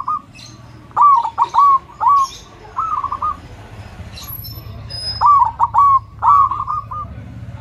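Zebra dove (perkutut) cooing: about five short phrases of quick, rolling coo notes, with a pause of two seconds in the middle. Faint higher chirps sound behind them.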